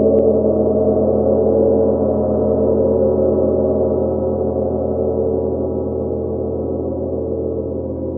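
A 70 cm Nepalese gong rings on after a soft felt-mallet stroke: a dense cluster of sustained, overlapping tones that slowly fades.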